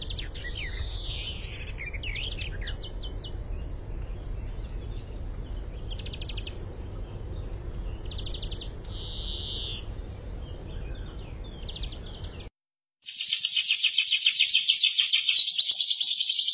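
European greenfinch singing in short, rapid, buzzy trills and a rising nasal wheeze, over a steady low background rumble. After a brief silence about twelve seconds in, a caged finch starts a much louder, continuous fast trilling song.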